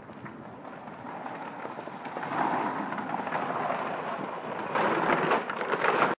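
Crackling, rain-like patter of dry dog food and a pack of street dogs crowding in to eat it. It builds about two seconds in, grows louder and more jostling near the end, and cuts off suddenly.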